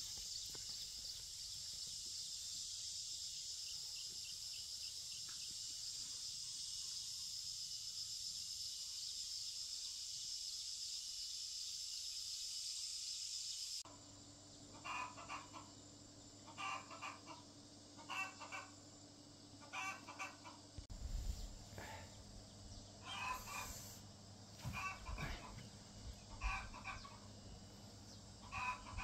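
A steady high hiss for about the first half that cuts off abruptly, then chickens clucking and calling in short repeated bursts, roughly one a second.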